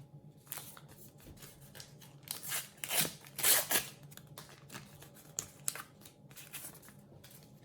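A sticker packet wrapper being torn open and handled, with scratchy tearing and rustling that is loudest a few seconds in.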